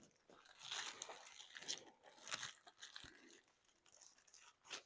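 Faint, irregular crinkling and rustling of a diamond painting kit's packaging being handled.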